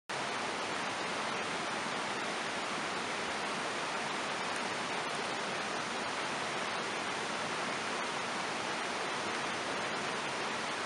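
Steady, even rush of water flowing over rocks in a stream.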